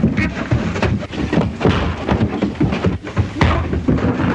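Two men fistfighting: irregular thuds of blows and scuffling.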